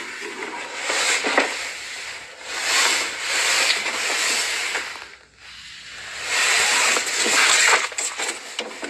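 A cornered cat hissing over and over, each hiss about a second long with short breaks between.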